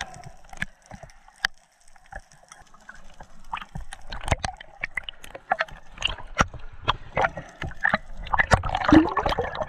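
Underwater sound through an action camera's housing while free diving over a reef: irregular clicks and crackles that grow denser from about four seconds in, with bubbling gurgles near the end.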